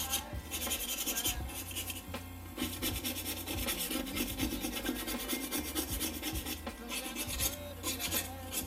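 Plastic pry tool scraping old thermal pad residue off a graphics card's backplate in quick, repeated strokes, with a brief pause about two seconds in.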